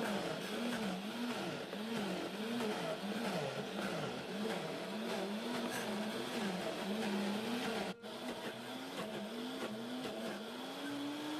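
High-power blender motor grinding soaked chickpeas, onion, garlic and parsley into falafel paste. Its pitch rises and falls about once a second as the tamper pushes the mix down into the blades. After a brief break about eight seconds in, the motor climbs to a higher, steadier pitch near the end as the mix turns to paste.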